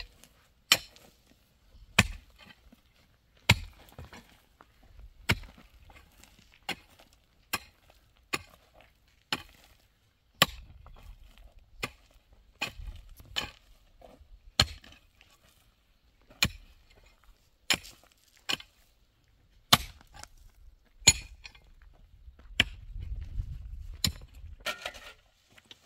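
Chopping: about twenty sharp blows struck one at a time, roughly one every second or so.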